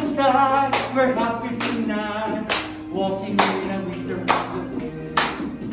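Voices singing a song with hand claps on the beat, about one clap a second.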